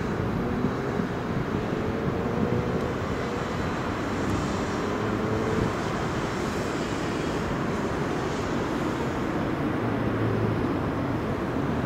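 Distant traffic and a tram crossing a road bridge: a steady hum of running vehicles, with a faint whine that rises and falls over the first half.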